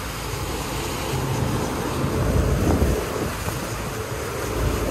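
Wind buffeting the microphone over the rush of the boat's wake and the low drone of outboard motors running at trolling speed.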